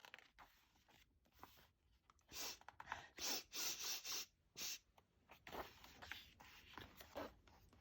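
Paper rustling in several short bursts about two to five seconds in, then fainter scratchy handling: the pages of a picture book being turned.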